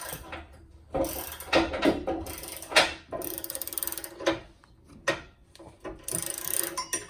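Socket ratchet wrench clicking in two quick runs as a tow hook bolt is worked, with a few sharp metal knocks in between.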